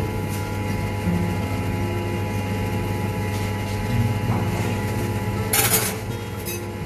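Chamber vacuum-packing machine's vacuum pump running steadily as it draws down the chamber, the vacuum climbing past 85 percent. A brief burst of noise about five and a half seconds in.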